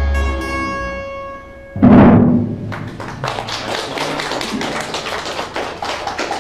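A live acoustic band ending a piece: a held chord rings out and fades, then a single loud drum hit about two seconds in dies away, followed by a patter of quick light taps.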